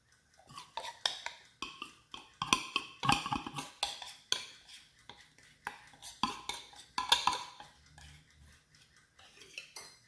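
A kitchen utensil clinking and scraping against a bowl and mug as batter is spooned out, in irregular knocks with short ringing.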